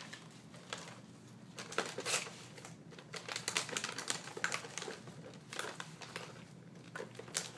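Irregular light clicks and taps of toy play-kitchen pieces being handled in their packaging box.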